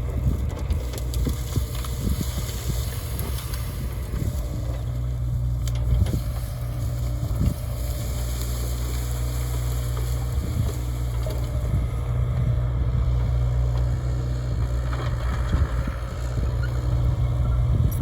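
Hyundai HX60 excavator's diesel engine running steadily under working load, with scattered cracks and crunches of brush and branches breaking.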